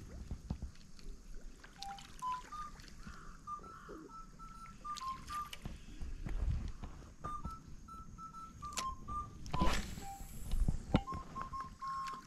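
A simple high tune of pure, single tones stepping up and down from note to note, with light clicks and low rumble beneath it; about ten seconds in comes a short rush of noise, the loudest moment.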